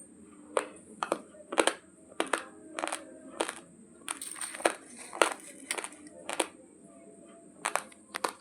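Raw long-grain basmati rice being chewed: a run of sharp, irregular crunches, some in quick pairs, with a pause of about a second near the end.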